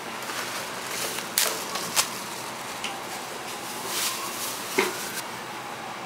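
Supermarket background hubbub, steady and without speech, broken by a few sharp clicks and knocks, three of them louder, from produce and crates being handled.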